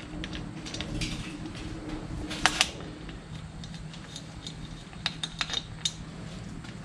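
Light metallic clicks and clinks of the loose cover bolts and valve cover being taken off a 2005 Suzuki GS500F engine, with one louder clink about two and a half seconds in and a run of quick clicks around five seconds in, over a steady low hum.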